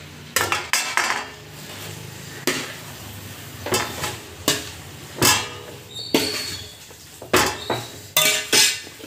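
A slotted spatula stirring chicken with mint and coriander in a large metal pot, with irregular clanks and scrapes against the pot about every half second to second. A low sizzle from the frying chicken runs underneath.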